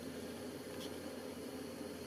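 Steady room tone: an even hiss with a low hum, and one faint tick a little under a second in.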